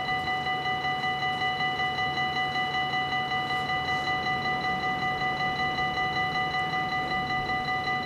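Dutch level-crossing warning bell ringing in a rapid, even series of strokes, about four a second: the crossing is closed with its barriers down.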